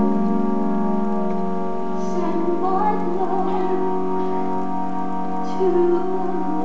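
Stage-musical orchestra playing held, sustained chords, with a wavering melody line rising over them about two to four seconds in and again briefly near the end.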